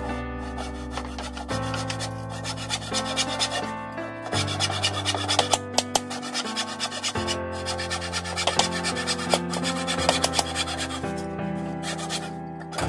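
Hand saw cutting through a 1x2 wooden strip with repeated back-and-forth strokes, over background music with sustained chords.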